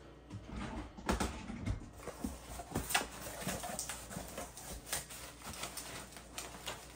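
Cardboard box flaps pulled open and the bubble wrap packed inside handled: irregular rustling, crinkling and light knocks.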